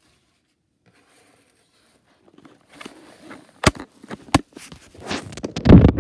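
Handling noise: quiet at first, then light rustling and two sharp knocks, and near the end a loud, low rumble of the phone or camera being moved and rubbed.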